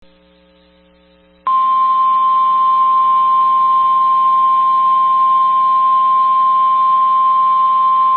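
NOAA Weather Radio warning alarm tone: a single loud, steady 1050 Hz tone that starts abruptly about a second and a half in, after faint low hum. It signals a severe thunderstorm warning.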